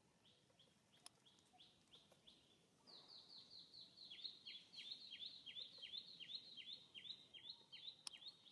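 A bird calling: a faint series of short rising chirps, then from about three seconds in a louder, quicker run of repeated notes, about four a second, with a couple of faint clicks.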